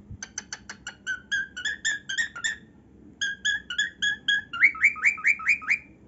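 Male cockatiel singing: a quick run of short chirping notes, a brief pause about three seconds in, then another run that ends in a louder series of quick rising notes.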